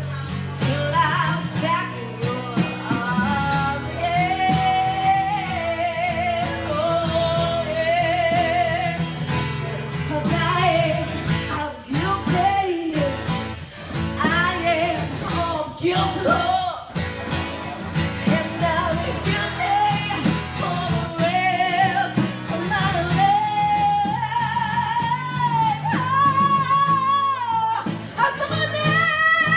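Live acoustic band: a female vocalist sings long, wavering notes with heavy vibrato over a strummed acoustic guitar and conga drums.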